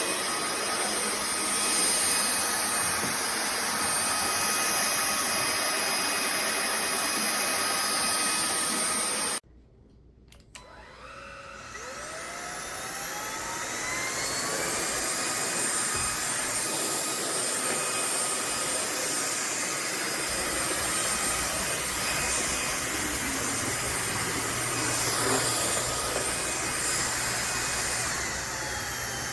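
Cordless stick vacuum's motor running with a steady high whine. It cuts off suddenly about nine seconds in, then spins back up with a rising whine and runs steadily again.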